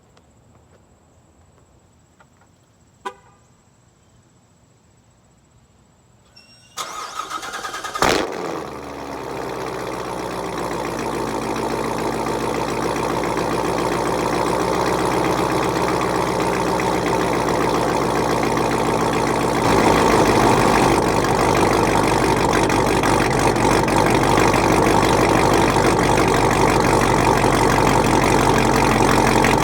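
A short beep about three seconds in. Then the 2015 Corvette Z06's supercharged 6.2-litre LT4 V8 is cranked by its starter and fires with a sharp flare of revs, settling into a steady idle that slowly grows louder and turns deeper about twenty seconds in.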